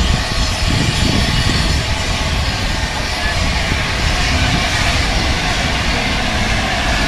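LNER A4 Pacific steam locomotive running slowly into the station with its train: a steady low rumble that grows a little louder as it nears.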